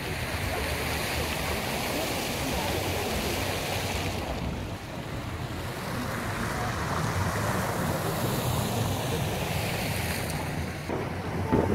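Wind blowing across a phone's microphone, a steady rushing noise.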